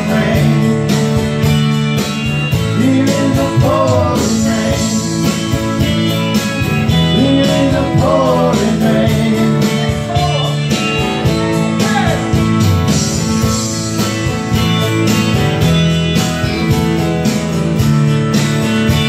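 Live band music: acoustic guitar strumming over steady bass notes, with a wavering lead melody line on top that comes and goes every few seconds.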